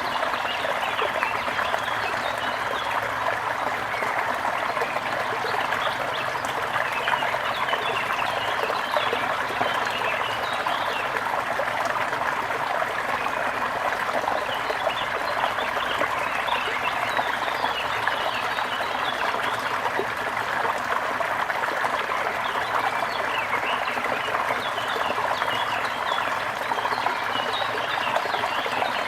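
Steady trickling and babbling of flowing water, with many small birds chirping throughout.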